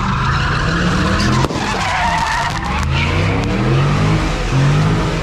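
A car spinning donuts, its tires squealing in a wavering screech while the engine revs rise and fall over and over. There is a single sharp crack about a second and a half in.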